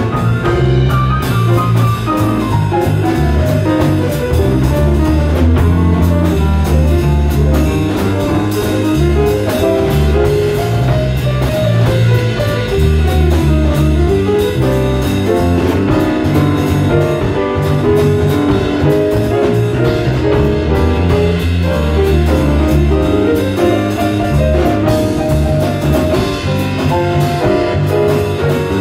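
Small jazz combo playing live, with piano, electric bass and drums under a busy, winding melodic line.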